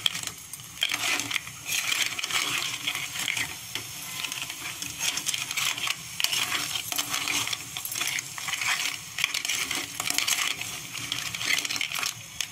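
Steel spoon clinking and scraping against a steel pot as crab pieces are stirred in thick masala paste, with many irregular sharp clicks. A light sizzle of frying runs underneath.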